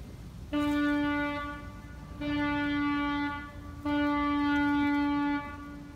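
Three long horn blasts at one steady pitch, each lasting about a second or more, separated by short gaps.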